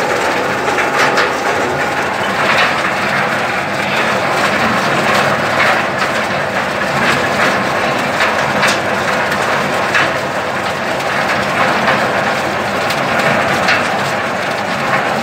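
Arecanut (betel nut) de-husking machine running: a steady mechanical drone with irregular cracking and clattering as nuts are husked.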